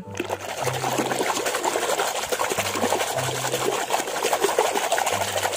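Soapy water sloshing and churning continuously in a plastic basin as a hand rapidly scrubs a small plastic toy dinosaur under the foam.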